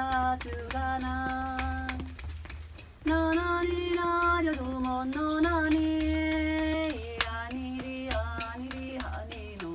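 A woman singing in Korean, holding long steady notes that step up and down, with a steady low pulse underneath.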